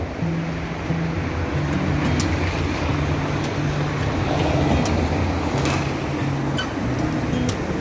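Background music with a stepping bass line of held low notes, over a steady rushing noise.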